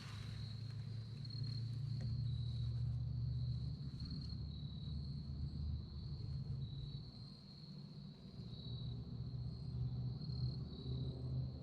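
Crickets trilling steadily in a high, thin tone, over a low rumble of wind on the microphone.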